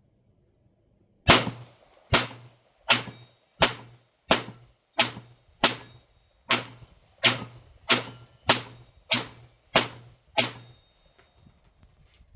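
Taurus TX22 .22 LR semi-automatic pistol firing a string of about fourteen shots at a steady pace, roughly one every three-quarters of a second, each a sharp crack with a short tail.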